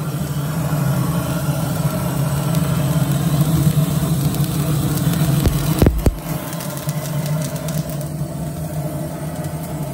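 GrillGun propane torch blowing a steady, loud flame into the charcoal of a kamado grill to light it. A few sharp knocks come about six seconds in, and then the torch runs on a little quieter.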